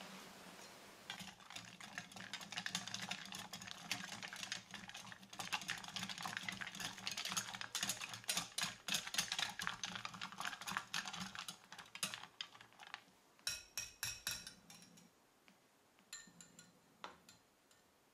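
Wire balloon whisk beating eggs in a glass mixing bowl: a fast, dense clatter of the wires against the glass. It thins out near the end to a few separate taps.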